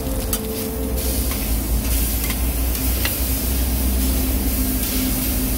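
Thin slices of meat sizzling on a flat-top griddle, with a few sharp clicks and scrapes of a metal spatula as they are turned. A low steady hum and rumble run underneath.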